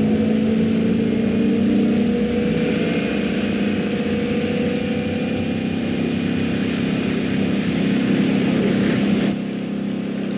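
A sport-fishing boat's inboard engines drone steadily at speed, with water rushing and spraying along the hull. About nine seconds in the sound drops a little and thins.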